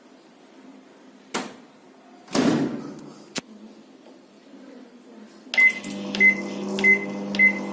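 A couple of clicks and a clunk, then a microwave oven's keypad beeps four times at a steady pace as it is set for two minutes, and the oven starts running with a steady hum.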